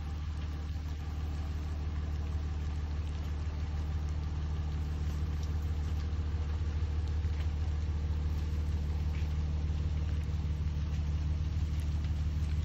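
An engine running steadily at idle, a low, even hum.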